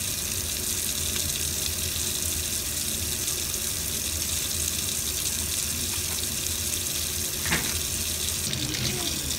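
Tap water running steadily into a sink, with one short knock about seven and a half seconds in.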